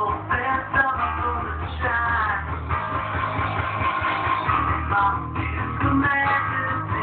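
Guitar-led rock and roll record playing on a record player.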